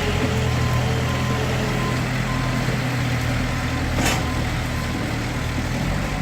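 Motor vehicle engine running steadily with a low hum, with one brief sharp sound about four seconds in.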